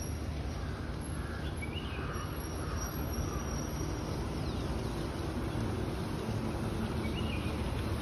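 Steady rushing outdoor noise, with a faint bird chirp about two seconds in and again near the end.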